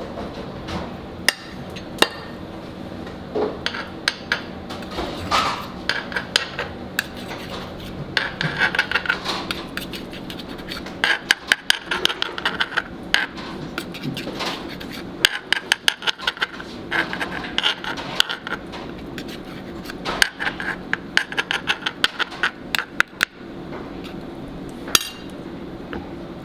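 Kitchen utensils clicking, tapping and scraping on metal and dishware in rapid clusters, with pauses between, over a steady kitchen hum.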